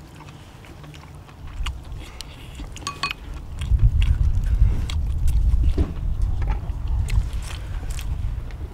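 People eating with their mouths close to the microphone: chewing and lip-smacking with scattered short clicks. A low rumble grows loud about three and a half seconds in and becomes the loudest sound.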